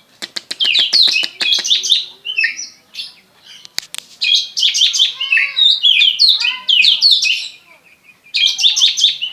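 Oriental magpie-robin (kacer) singing loudly. A fast run of ticks opens the song, followed by varied whistled and chattering phrases with a brief pause near the end. The song is the kind its keeper calls 'rasa ciblek', mimicking the bar-winged prinia.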